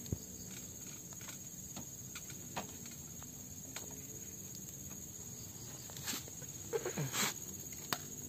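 A smouldering coconut-husk fire under skewered freshwater mussels, giving a few small sharp crackles over a steady insect drone. About seven seconds in, a short animal call slides down in pitch.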